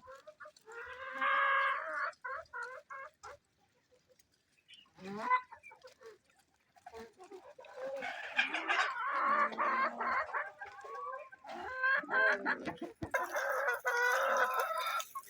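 Hens clucking and calling in several bursts, with quiet gaps between them; the longest stretches of calling come about halfway through and again near the end.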